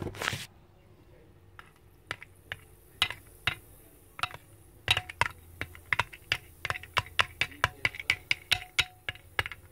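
Plastic wand stirring in a bowl of soda with Mentos, clicking against the bowl. There are a few scattered taps at first, then quick clicks about four or five a second from about five seconds in. A short bump comes at the very start.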